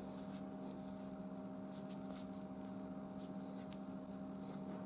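Faint handling of climbing rope and a carabiner while an Italian hitch is dressed: soft rustling with a few light clicks, over a steady low hum.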